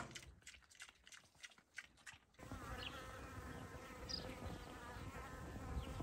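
A buzzing insect: a steady buzz starts about two and a half seconds in, after a couple of seconds of faint scattered clicks, with a few short bird chirps over it.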